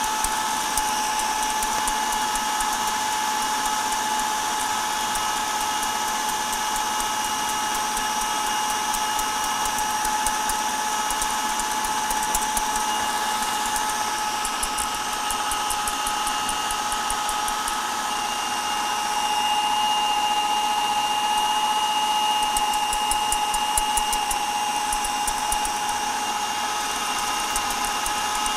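Food processor motor running steadily with a constant whine while it mixes a dough. Light metallic clinks of a spoon and whisk against a steel saucepan come through at times.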